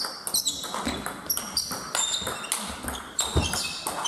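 Table tennis rally: the celluloid/plastic ball clicks sharply off bats and table many times, echoing in a large sports hall. Short high squeaks of sports shoes on the hall floor come between the hits.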